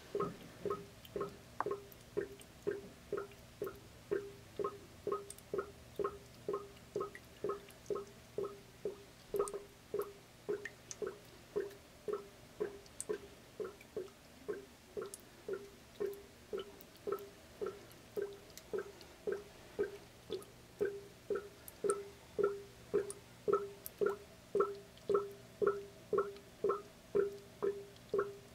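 Carbon dioxide from actively fermenting beer bubbling out through a blow-off tube into a jug of liquid: a steady run of short gurgling blips, about two a second. It is the sign of vigorous active fermentation.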